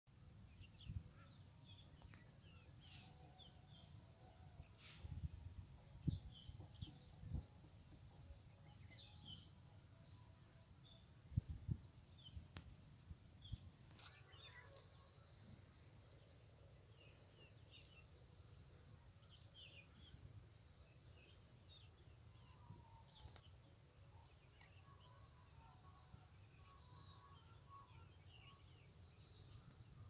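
Faint outdoor ambience of small birds chirping and calling on and off, over a low rumble with a few dull thumps in the first half.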